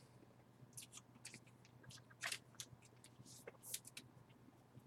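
Near silence with a few faint clicks and scrapes of trading cards being handled, over a faint steady low hum.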